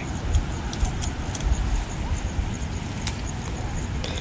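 Wind buffeting the microphone in uneven gusts, with light rustling and a few sharp clicks as plants are handled.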